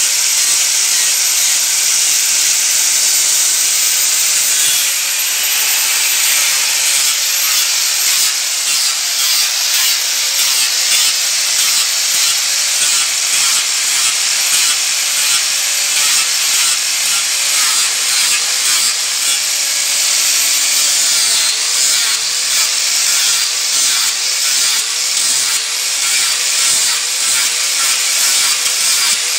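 Electric angle grinder running continuously, its disc grinding into the wood of a spoon being shaped. The motor's high whine holds steady at first, then dips and rises repeatedly in the second half as the disc is pressed into the wood and eased off.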